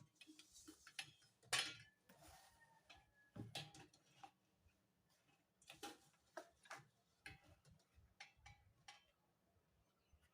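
Kitchen utensils and containers being handled: a series of irregular light clicks and knocks, a dozen or so, dying away near the end.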